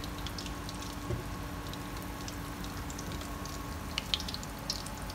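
Battered banana piece deep-frying in hot oil in a wok: a steady low sizzle under a constant faint hum, with a few sharp clicks about four seconds in.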